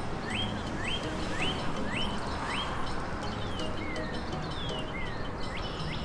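A songbird singing clear whistled notes: a run of quick rising whistles, about two a second, then a few slower falling ones, over steady background noise.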